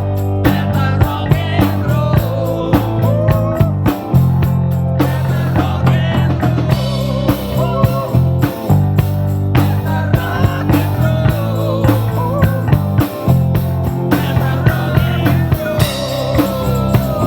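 Rock music: a drum kit keeps a steady beat under a sustained bass line and a wavering melodic line, likely voice or lead guitar.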